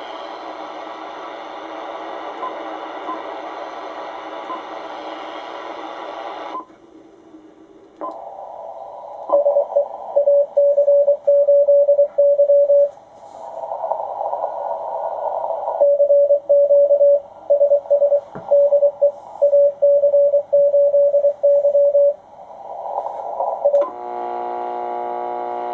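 Ten-Tec Paragon 585 HF transceiver's receiver audio: band hiss that drops out briefly as the band is changed, then a Morse code (CW) signal heard as a single steady beep keyed on and off in dots and dashes over the noise. Near the end, after another band change, a steady buzz replaces it.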